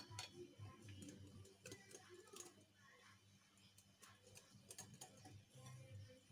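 Faint, irregular clicks and taps of a mixing utensil against a bowl as flour is worked into cake batter, over a faint low hum.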